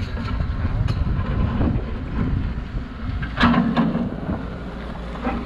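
Wind buffeting the microphone over the low, steady running of a wheeled excavator's diesel engine.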